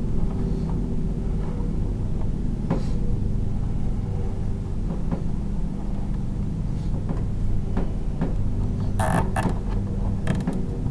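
A steady low mechanical hum, with scattered light clicks. A short cluster of sharp clicks and rattles comes about nine seconds in and again just before the end, from wires being handled at a terminal strip.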